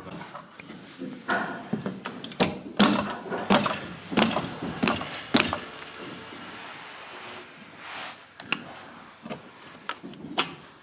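Carpet being trimmed with a hand cutter along the wall, a run of sharp crunchy cutting strokes through the backing, followed by a steadier rubbing as a heat seaming iron slides along the carpet seam, with a few clicks near the end.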